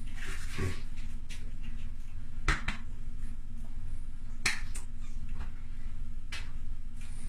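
A handful of short, sharp clicks and taps from a person's hands while signing, the loudest about two and a half seconds in, over a steady low hum.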